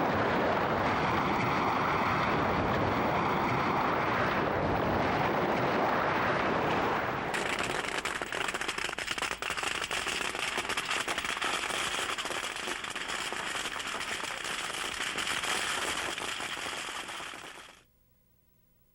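Firecracker strings going off in a rapid, continuous crackle, starting abruptly about seven seconds in and cutting off suddenly just before the end; before that, a steady rushing noise.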